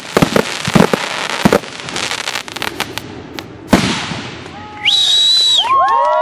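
Fireworks finale: rapid shell bursts and crackling for the first second and a half, then fading crackle and one more sharp bang a little before four seconds in. After that comes a shrill whistle, then several people whooping.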